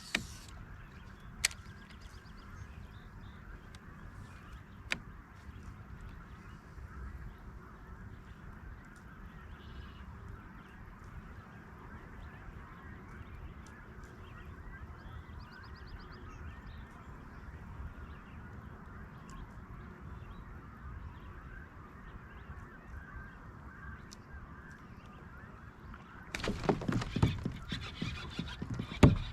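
Geese honking steadily, with a few sharp clicks in the first seconds. A louder patch of knocking and handling noise starts near the end.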